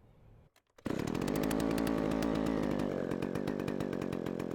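A 1960s military Stihl Contra chainsaw's two-stroke engine, cutting in abruptly about a second in and running steadily with rapid, even firing pulses, the saw running again after its repair.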